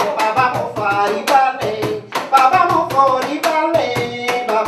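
A woman singing, holding and bending notes, over hand percussion struck in a quick steady rhythm with deep thumps beneath the sharp slaps.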